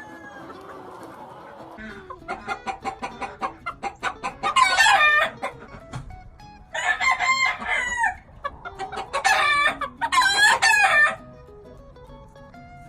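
Gamefowl roosters crowing, about three long crows in a row that start roughly a third of the way in, over softer clucking.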